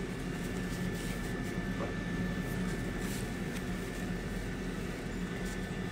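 Countertop air fryer running: a steady fan hum with a faint, constant high whine.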